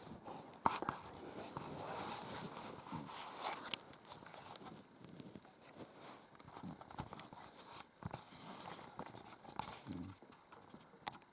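A man snoring in his sleep: low snores about every three to four seconds, with scattered faint clicks between.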